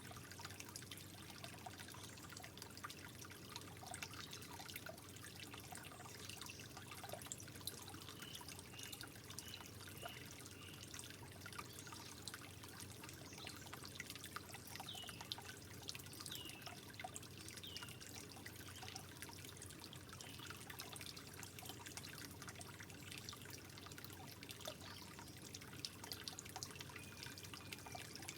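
Soft trickling water with scattered small drips and plinks.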